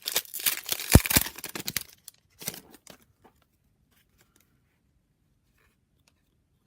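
Foil trading-card pack wrapper being torn open and crinkled, with a sharp tap about a second in. The tearing stops after about two seconds, leaving a few faint crinkles.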